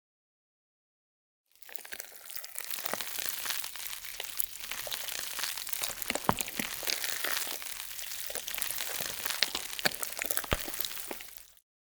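Close, crisp crackling and crinkling noise with many scattered sharp clicks. It starts about a second and a half in and cuts off abruptly near the end.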